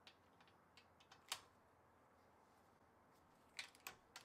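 Faint, sparse metal clicks of a socket wrench being fitted onto a bolt head on the scroll saw's housing. One sharp click comes about a second in, and a quick run of clicks comes near the end.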